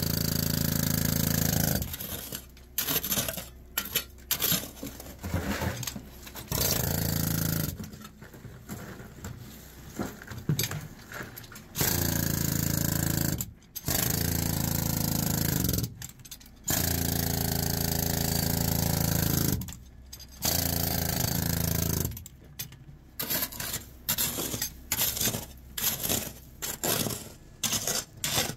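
Underground mining machinery running loudly in bursts of a couple of seconds. Between the bursts come quieter stretches of scraping and knocking rock, and the sound cuts off abruptly several times.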